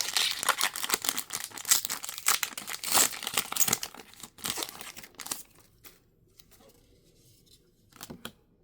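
Foil Pokémon TCG booster pack wrapper being torn open and crinkled in the hands, a dense crackling for about five seconds that then falls away, with one brief crinkle near the end.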